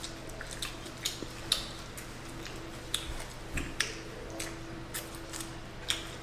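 Close-up wet eating sounds from someone eating sauced chicken wings: small irregular mouth clicks and smacks of chewing.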